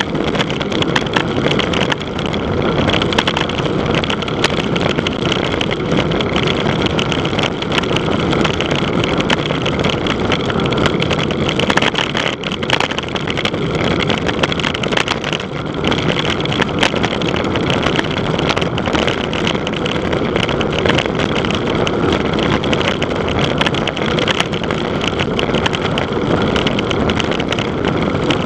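Loud, steady wind noise buffeting the microphone: the rush of air on a fast bicycle descent.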